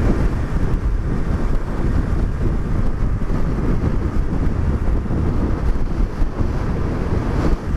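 Heavy wind noise buffeting the microphone on a moving motorcycle, with the vehicle's running noise underneath, steady throughout.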